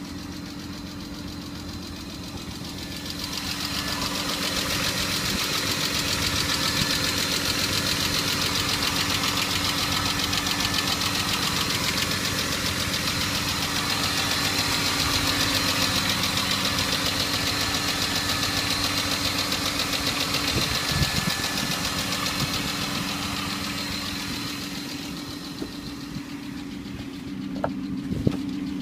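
BMW E34 520i straight-six idling on a cold start, with the hydraulic lifters knocking. The running sound grows louder a few seconds in and eases off near the end.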